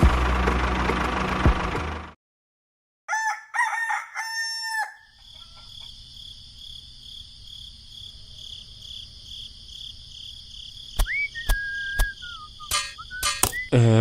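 A loud, dense noise cuts off about two seconds in. After a second of silence a rooster crows once, in short notes ending on a long held one. A steady high-pitched hum follows, with scattered clicks and a brief whistle-like tone near the end.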